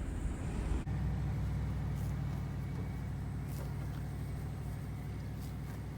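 Car running, a steady low drone of engine and road noise that starts abruptly about a second in.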